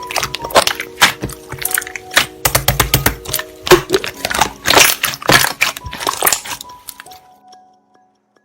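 Slime being played with by hand, giving a rapid run of sharp crackling pops from air bubbles, over soft background music. The crackling dies away about seven seconds in.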